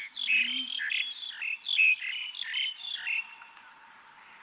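Small birds chirping in quick, repeated short notes, a busy chorus that thins out and stops a little after three seconds in.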